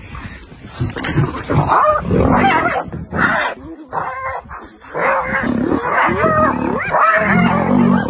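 Spotted hyenas yelping and giggling in repeated high cries that rise and fall in pitch as a lion charges them, with a deep lion growl near the end.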